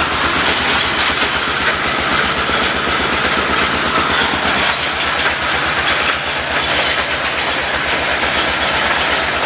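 Borewell drilling rig running: a loud, steady rushing noise over a fast, regular clatter that never lets up.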